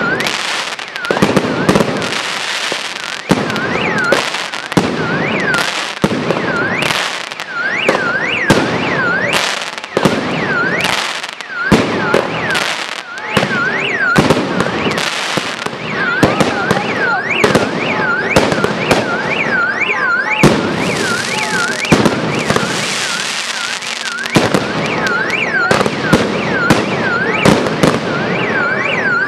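Aerial fireworks bursting in rapid succession: a near-continuous run of bangs and crackling. Behind them a high tone sweeps up and down over and over.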